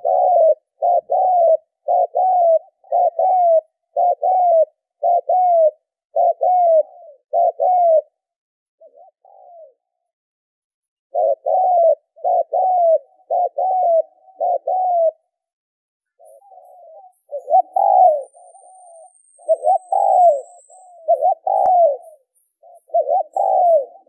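Spotted dove cooing: runs of short, falling coo notes repeated one after another, a pause of about three seconds partway through, then the cooing starts again.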